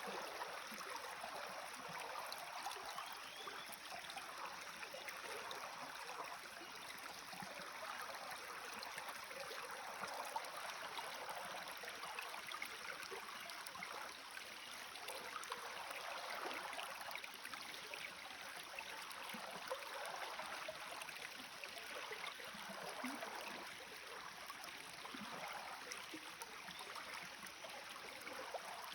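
Small forest stream bubbling and gurgling as it runs between fallen trees, a steady wash of water with small irregular splashes.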